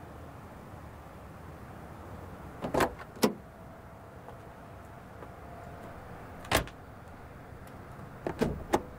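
Sharp knocks and clunks over a steady low rumble: two close together about three seconds in, a single one past the middle, and a quick cluster of three near the end.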